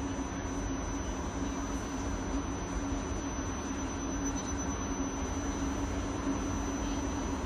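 South Western Railway Class 458 Juniper electric multiple unit standing at the platform, its onboard equipment giving a steady hum with a constant low tone over a low rumble.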